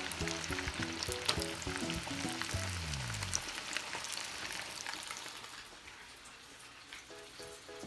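A flour-dredged tilapia fillet deep-frying in hot oil in a saucepan, with a dense crackling sizzle that grows quieter in the second half. Background music plays over it, stops with a falling glide about three seconds in, and comes back near the end.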